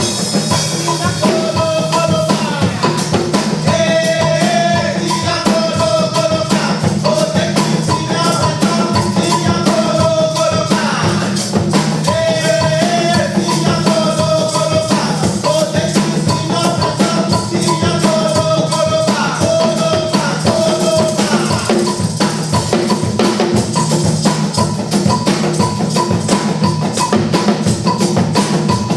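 Music: a busy drum-kit and percussion beat with a repeated melodic phrase over it. The melody drops out about 21 seconds in, leaving the drums.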